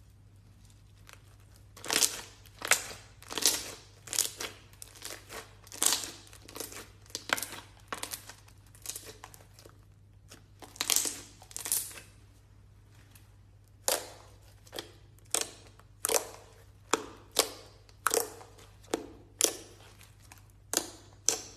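Slime being squeezed and pulled apart by hand, making a string of sharp, crackling pops about one or two a second, with a couple of short pauses.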